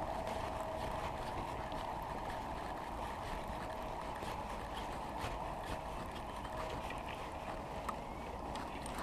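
Spinning reel being cranked to retrieve a lure: faint, scattered ticks over a steady outdoor rush with a faint hum that fades away.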